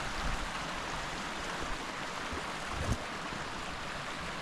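Mountain creek running steadily with a continuous rushing hiss, and a brief low thump about three seconds in.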